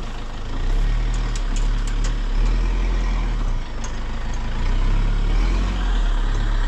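Toyota Hilux pickup's engine running close by, a steady low rumble that swells and eases a little.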